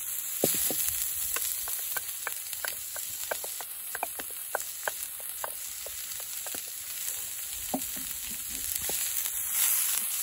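Minced onion and garlic frying in oil in a small frying pan over a wood fire, a steady sizzle. A wooden spatula stirring it gives many short clicks and scrapes against the pan through the middle.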